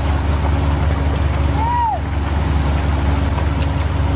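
Fishing boat's engine running steadily under the splashing of tuna thrashing in the net. A single short whistle-like tone rises and falls about a second and a half in.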